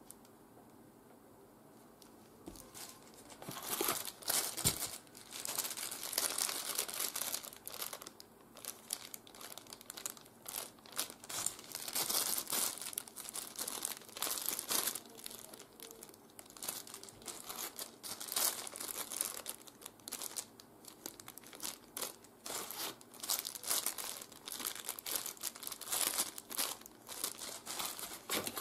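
Clear plastic accessory bag crinkling and rustling in hands as it is opened and its small parts handled, in irregular crackles starting about three and a half seconds in.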